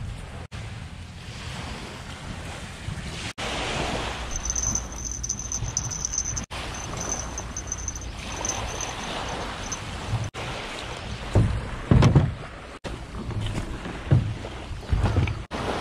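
Wind buffeting the microphone over small waves lapping a shell-covered beach, with louder gusts near the end.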